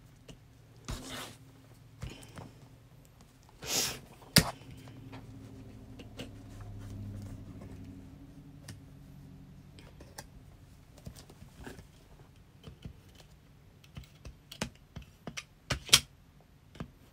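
Scattered light clicks and taps of tools being handled on a work table, with a few brief rustling swishes about a second in, near four seconds and near the end, as a sewn vinyl strap strip is measured and cut into 3-inch pieces.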